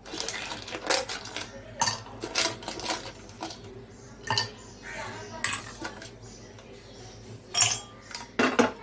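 Ice cubes dropped by hand into drinking glasses, clinking against the glass. The clinks are sharp and irregular, about one a second, with a quick pair near the end.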